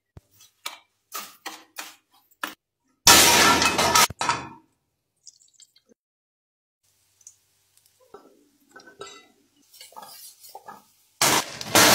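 Kitchen work sounds: a run of light taps and clicks, a loud burst of noise about three seconds in, then a frying pan clinking and knocking on the gas stove's grate as onions are tossed in it, with another loud burst of noise near the end.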